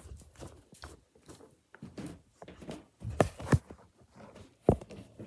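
Handling noise: rustling and knocks as a cardboard box and the handheld recording device are moved about, with three sharper thumps in the second half.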